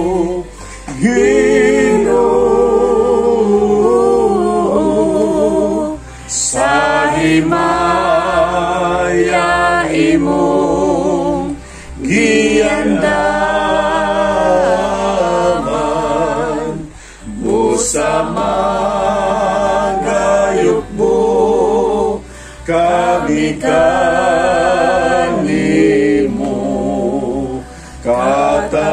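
A small group of men and women singing together without accompaniment, in long held notes that break every five seconds or so between lines.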